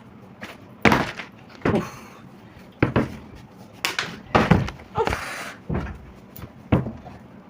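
A plastic bottle flipped in a bottle-flip game, landing again and again with sharp thuds, about eight knocks roughly a second apart.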